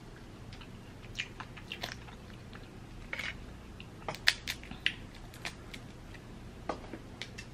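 Boiled crawfish being peeled and eaten: scattered sharp cracks and snaps of shell breaking, with chewing, in a quick cluster about four seconds in.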